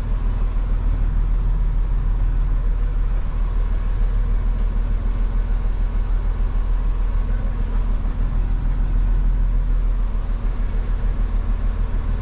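Tow truck's diesel engine running at low speed as the truck creeps along, a steady low rumble heard inside the cab.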